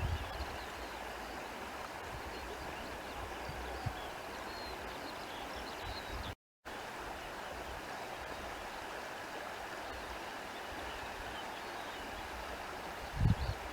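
Countryside ambience dominated by the steady rush of a running stream, with faint high chirps over it. Low rumbles come briefly at the start and again near the end, and the sound cuts out completely for a moment about six and a half seconds in.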